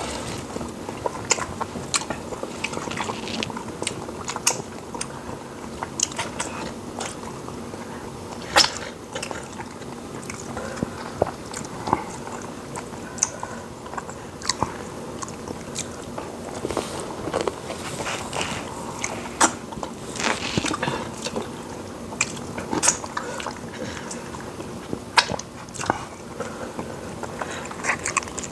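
Two people eating fufu and soup with their hands, close to the microphone: wet chewing with sharp lip smacks scattered irregularly throughout.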